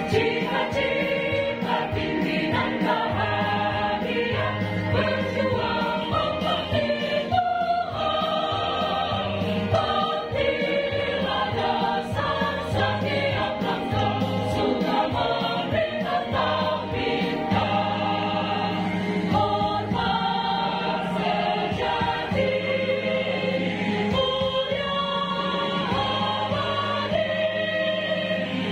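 A choir of mostly women with some men singing together in parts, with continuous sung notes changing every second or so. The singers nearest the microphone are heard up close.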